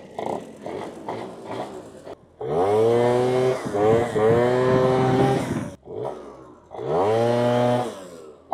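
A tuned two-stroke Zip scooter engine accelerating hard twice: each time the revs climb quickly and then hold at a steady pitch while the CVT shifts up. The rider judges this rev level, set by a mix of 6.5 g and 11 g variator rollers, to be about what he wants.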